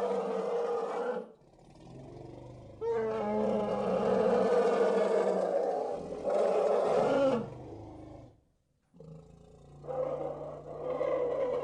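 Elephant calls: several long, loud calls, one after another, separated by short pauses and a brief silence about eight seconds in. One call ends in a falling pitch.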